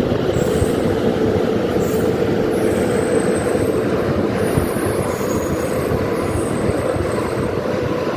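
Electric train running at speed: a loud, steady rumble of wheels on rails with a steady hum, and faint high-pitched squeals that come and go.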